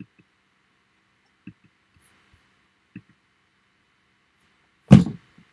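Three soft knocks about a second and a half apart, then one loud thump near the end.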